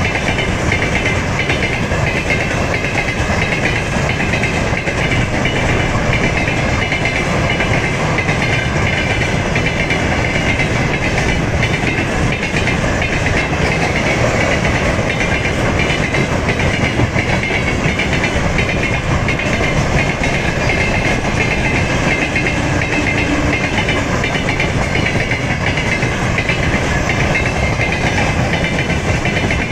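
Freight train of rail tank cars rolling past, a steady loud rumble of steel wheels on rail with continuous clatter over the joints.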